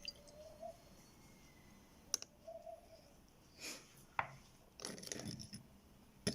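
Faint kitchen handling noises: four sharp taps of utensils against a jug, about two seconds apart, with brief swishing or scraping in between.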